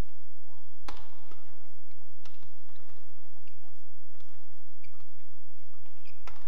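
Badminton rackets striking a feather shuttlecock in a doubles rally: a series of sharp, irregularly spaced pops, the loudest about a second in and another near the end, over a low steady hum.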